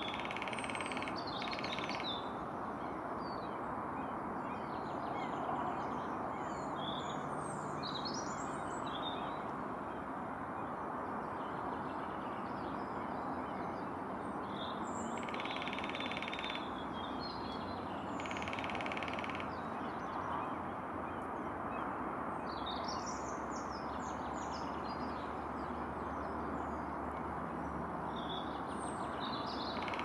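Small birds chirping and calling in scattered short high notes over a steady background hum. A few times a short buzzy burst lasting about a second and a half stands out.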